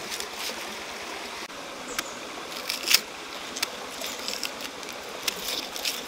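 Stream water flowing steadily, with a series of sharp clicks as a knife cuts into a firm green guava; the loudest cut comes about three seconds in, with several more near the end.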